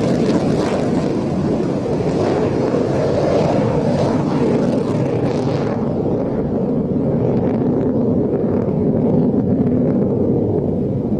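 A MiG-29's twin turbofan engines heard from the ground as the jet climbs away, a steady rumbling jet noise with wind buffeting the microphone. The high hiss in it fades about six seconds in as the jet recedes.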